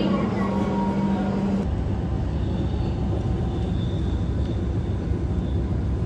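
A steady hum for about the first second and a half, then, after an abrupt cut, the even low rumble of a moving vehicle.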